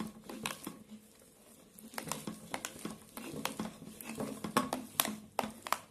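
Spiced boiled potato mash being rubbed by hand over a flat metal grater on a steel plate: irregular scraping strokes with sharp clicks, pausing for about a second near the start.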